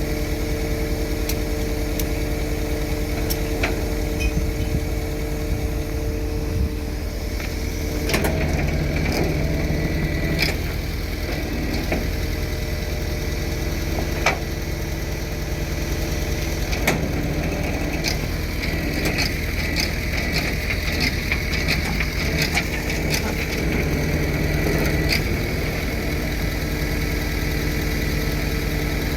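Engine idling steadily, with scattered metallic clicks and knocks over it; the engine's note shifts about eight seconds in and again near the end.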